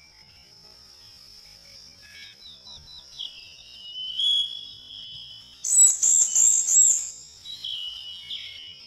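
Birdsong: several birds chirping and trilling over a steady high-pitched drone. About six seconds in, the loudest event comes: a rapid run of very high chirps lasting just over a second.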